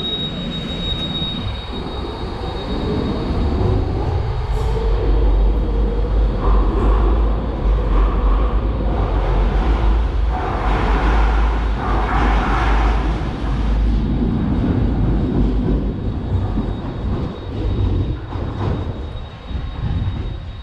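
Docklands Light Railway train running on its track: a loud low rumble of wheels on rail, with the traction motors' whine gliding up and down. It is loudest through the middle and eases off towards the end.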